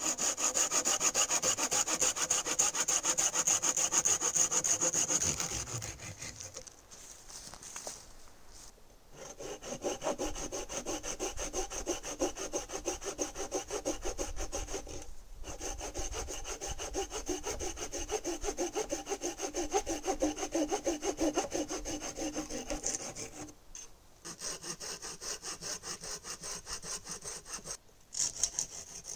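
Hand saw cutting through upright wooden wall posts to level their tops, in fast back-and-forth strokes. The sawing comes in several long bouts broken by short pauses.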